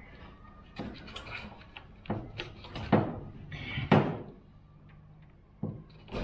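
A string of irregular knocks and clunks, about six in all, the loudest two near the middle, over a faint low steady hum.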